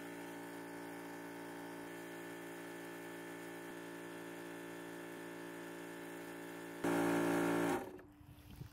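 Yong Heng high-pressure PCP air compressor running with a steady hum while topping off an air tank. About seven seconds in it gets louder for a second, then winds down and dies away.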